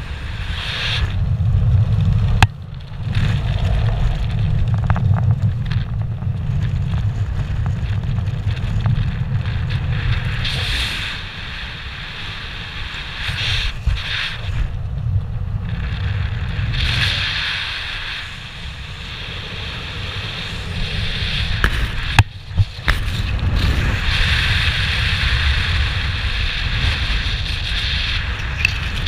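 Wind rushing over the helmet camera's microphone during parachute canopy flight: a steady low rumble with a hiss that swells and eases. Sharp clicks come twice, a couple of seconds in and again about three quarters of the way through.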